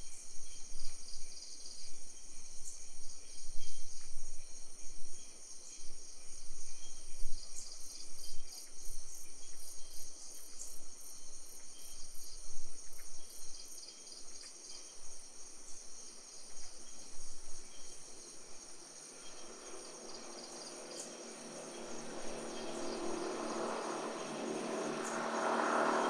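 Crickets and other night insects calling steadily, a high, pulsing chorus. In the second half a distant engine swells, growing louder toward the end as it passes.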